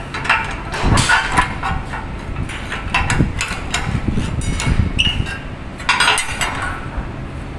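Repeated metal clanks and clinks of a steel bending bar working against a jig as a flat steel strip is levered around a round pipe form, over a steady low hum.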